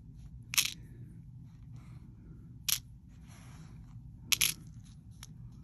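Small metal bead caps clicking against a plastic bead-sorting tray as they are placed into it: a few sharp clicks a second or two apart, with a double click near the end.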